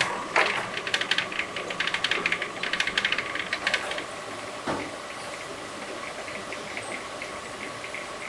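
Noodle-cutting machine running: a fast clatter of clicks for about four seconds, then a steadier, quieter running noise with a thin steady whine.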